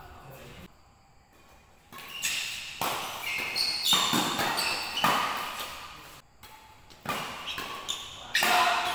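Badminton rally: rackets smacking the shuttlecock back and forth, a sharp hit about every second from about two seconds in, echoing in a large hall, with shoes squeaking on the court between hits.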